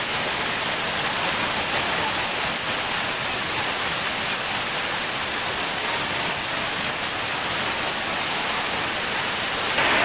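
Water cascading and splashing over boulders close to the microphone: a steady, hissing rush of white water.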